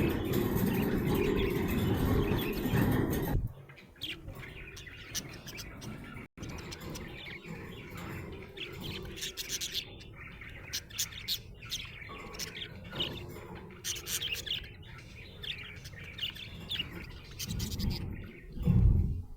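Budgerigar chirping in many quick, short chirps. For the first few seconds a louder, denser noise covers it, then cuts off suddenly, and a low thump comes near the end.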